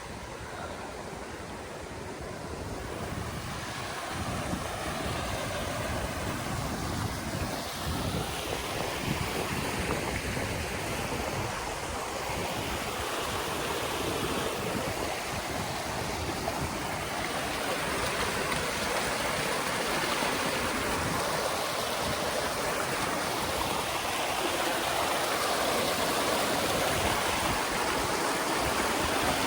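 Rushing water of a waterfall stream, a steady noisy wash that grows gradually louder.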